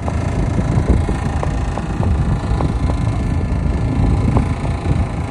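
Steady low rumble of a boat's engine running, mixed with wind buffeting the microphone.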